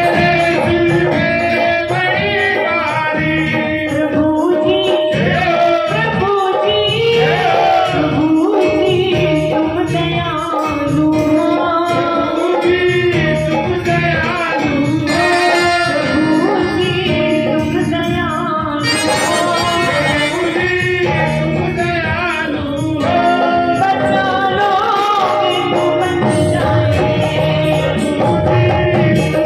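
A woman singing a Hindi devotional bhajan live into a microphone, with a dholak drum beating the rhythm and a steady instrumental drone underneath.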